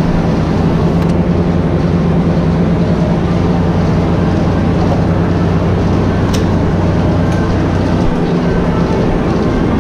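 Barn machinery running with a steady low hum, and a single sharp click about six seconds in.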